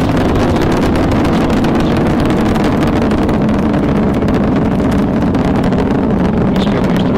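Space shuttle's main engines and solid rocket boosters firing during ascent: a steady, loud, dense rumble with no let-up.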